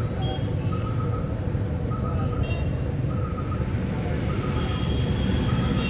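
Steady low rumble of outdoor background noise, with a short pitched call repeating about once a second. A steady high tone comes in near the end.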